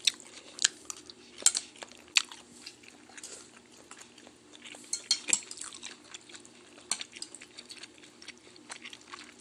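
Chopsticks clicking and clinking against a bowl of noodle soup, irregular small clicks, with quiet chewing.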